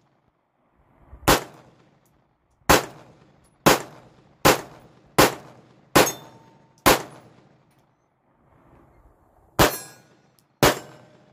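Sig P365 pistol in .380 ACP firing nine single shots, about a second apart at first, then a pause of nearly three seconds before the last two.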